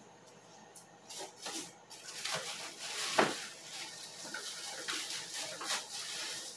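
Frozen sacolé ice pops in plastic bags rustling and clattering as they are grabbed by the handful and dropped into an ice-pop cart's cooler box. The sound is an uneven run of crackly knocks and plastic rustles that starts about a second in.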